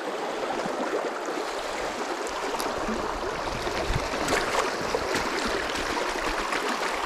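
Fast river current rushing over stones, a steady water noise.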